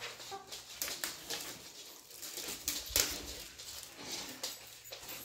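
Rummaging through a pile of shoes and a plastic bag crinkling as the clue is pulled out, a run of short rustles and knocks with the sharpest one about three seconds in.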